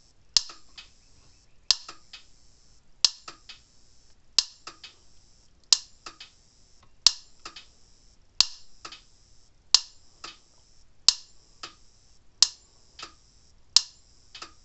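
Dare Enforcer DE4000 10-joule electric fence charger firing its high-voltage pulse as a spark across a gap: a sharp snap about every second and a third, each followed by a couple of fainter ticks. The steady pulsing shows the charger working and throwing a strong spark.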